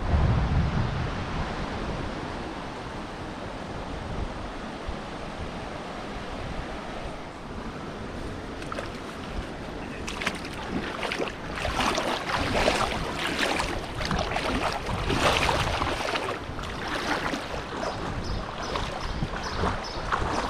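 Steady rush of flowing water. From about ten seconds in, louder irregular splashing comes and goes over it.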